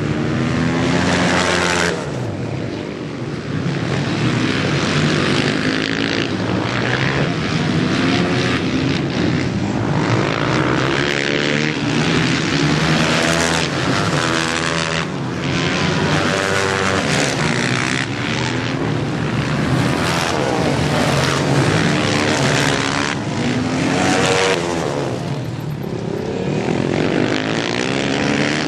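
Supermoto racing motorcycle engines revving hard as the bikes race by, the pitch climbing through each gear and dropping at each shift, over and over.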